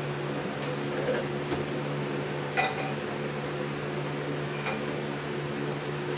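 Three light metallic clinks, the loudest about two and a half seconds in, as a piston and connecting rod are handled in a parts box, over the steady hum of a fan.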